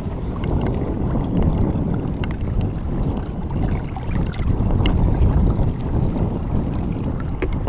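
Wind blowing hard across the microphone over choppy lake water around a small boat, a steady low noise with a few light knocks scattered through it.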